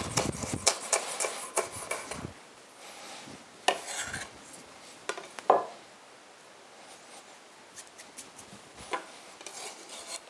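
A chef's knife chopping a red chili on a wooden cutting board: quick, sharp strokes for about the first two seconds. After that come a few scattered knocks and light scraping as the chopped chili is gathered into a bowl, with one louder knock about halfway through.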